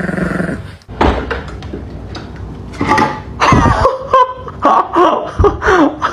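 A steady buzzing drone that cuts off about a second in. Then a person's voice, laughing and exclaiming in short bursts.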